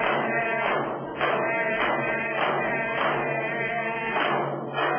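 Yup'ik frame drums struck together in a steady beat, a little under two strikes a second, under a group singing a dance chant.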